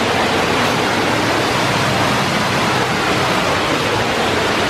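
Waterfall rushing: a steady, loud, even sound of falling water.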